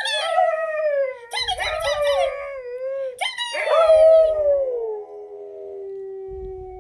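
A dog howling: three howls, each starting high and sliding down in pitch, the last one drawn out into a long steady note.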